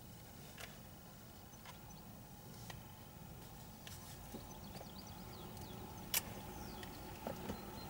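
Quiet rural background with faint bird chirps and a few soft clicks, the sharpest about six seconds in.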